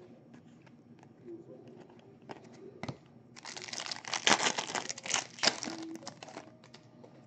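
A few light clicks of cards being handled, then, about halfway in, a baseball card pack's wrapper being torn open and crinkled. The crinkling lasts about three seconds.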